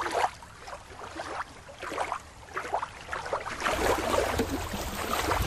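Small irregular splashes and lapping of water. About two-thirds through, a low wind rumble on the microphone joins in.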